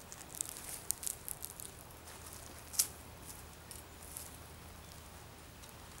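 Light rustling and crackling of footsteps on dry leaf litter and grass: a quick cluster of soft crackles in the first couple of seconds, then one sharper crackle a little before halfway, over a faint low outdoor rumble.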